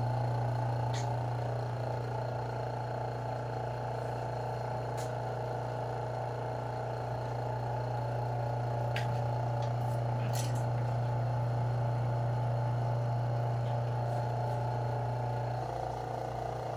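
Steady low hum of the small pump motor that powers a stone-installer's vacuum seam setter, with a few light clicks and taps. The hum cuts off about a second before the end.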